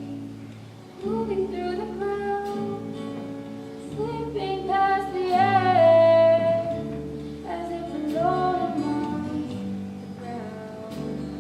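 Singing over guitar-led accompaniment, in phrases with held, gliding notes.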